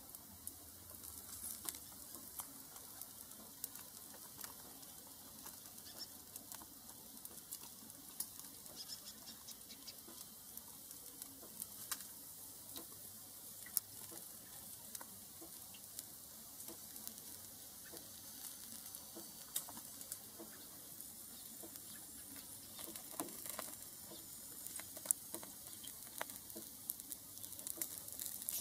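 Meat roasting on a rotisserie spit over gas flames, sizzling with irregular pops and crackles over a steady hiss as fat drips onto the burner.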